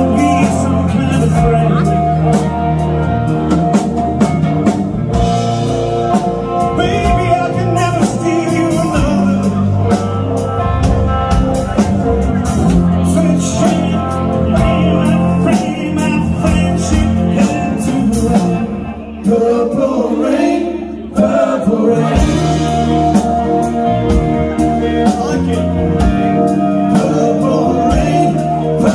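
Live rock band playing: electric guitars, bass and drum kit, with a man singing. About nineteen seconds in, the drums and bass drop out for about two seconds under a sliding, rising line, then the full band comes back in.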